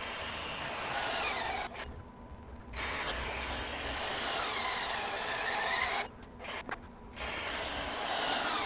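HYTORC Lithium Series II battery torque wrench running under load as it tightens large test bolts to 900 and 1,000 foot-pounds: a steady motor-and-gear whir in three runs with short pauses between.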